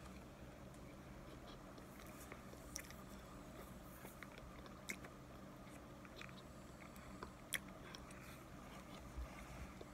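Faint chewing of a mouthful of dry starch mixture, powder and crumbly chunks, with a few short sharp clicks scattered through over a low steady hum.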